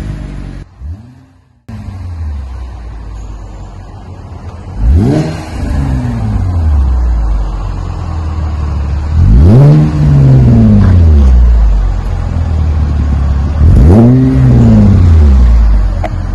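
2019 Chevrolet Camaro's 3.6-litre V6 through a dual axle-back exhaust with Magnaflow straight-through mufflers and the active exhaust valves deleted, idling and blipped three times, each rev climbing and falling back to idle; the last two revs are held a moment longer. The sound cuts out briefly about a second in.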